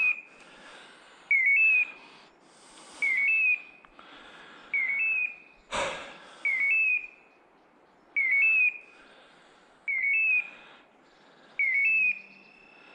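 A hunting dog's beeper collar sounding its point-mode call, a short rising electronic chirp repeated the same way at an even pace about every 1.7 seconds: the signal that the pointer is standing on point. Faint rustling in dry leaves between the calls, with one sharp snap about six seconds in.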